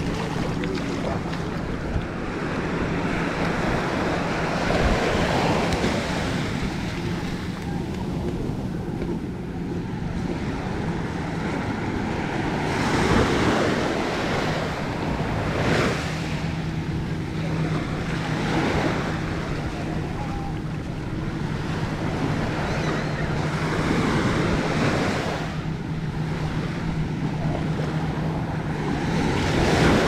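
Small waves breaking and washing up on a sandy shore, a steady hiss of surf that swells with each wave every few seconds.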